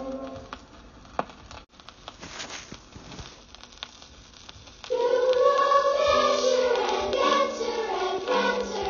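A song with singing voices. A held choral chord dies away at the start, leaving a quiet stretch with a click and a sudden cut. About five seconds in, voices come in loudly, singing with music.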